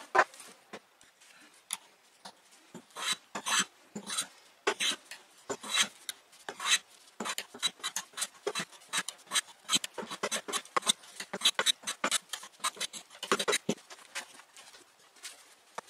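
Metal hand plane shaving a pine bar held in a wooden jig: a run of short, scratchy strokes, sparse at first and then coming fast, about two to three a second.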